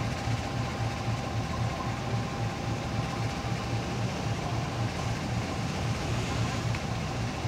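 Diesel engine of a train standing at the station, running steadily at idle: a low, evenly pulsing hum with a faint steady whine above it.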